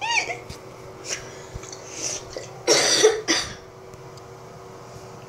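A child's laugh trails off, then about two and a half seconds in comes a short, loud cough, over a faint steady hum.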